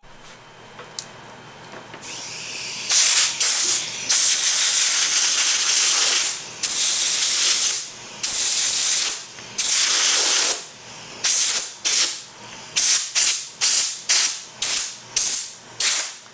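A pressurized nozzle hissing in bursts: a few long blasts, then a quickening run of short ones near the end.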